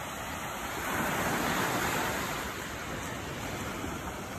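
Ocean surf washing onto a sandy beach: a steady hiss of breaking waves that swells about a second in and eases off again.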